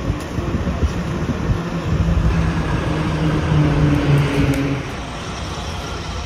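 City street traffic: passing motor vehicles, with a low engine drone from about two seconds in that fades near five seconds.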